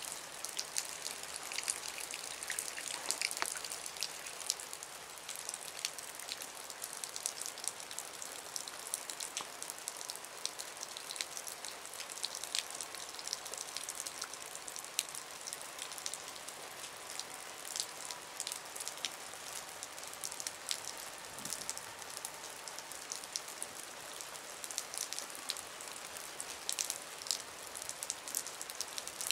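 Steady rain falling, with many small, sharp drop hits.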